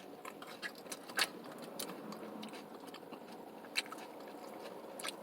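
A person chewing tortilla chips from nachos close to the microphone: scattered crisp crunches and mouth clicks over a quiet background, the loudest about a second in.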